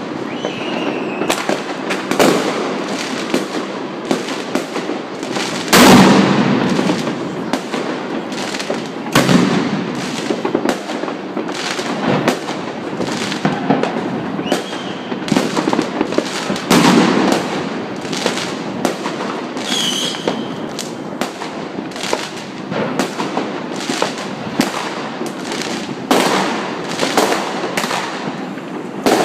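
Continuous New Year's fireworks all around: a dense barrage of firecracker bangs and rocket explosions, several a second, with a few heavier booms standing out and the odd faint rocket whistle.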